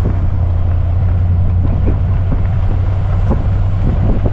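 Nissan Patrol Y62's V8 and tyres rolling slowly over a dirt track, heard from inside the cab: a steady low rumble with scattered small ticks and knocks from the rough surface.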